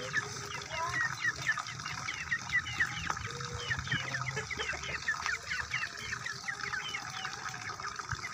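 Birds chirping: a steady run of short, high, falling chirps, several a second.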